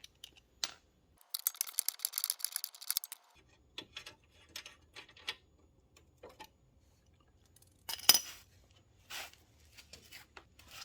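Hand tools working on motorcycle fasteners: a quick run of rapid ratchet clicking as a T40 Torx bit turns a screw, then scattered metal clicks and clinks, with one louder clink about eight seconds in.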